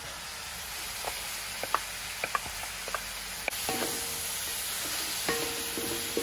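Grated carrot sizzling in hot fat in a large wok over a gas burner, with a wooden spatula knocking and scraping against the pan as it is stirred in. Faint plucked-string music comes in over the second half.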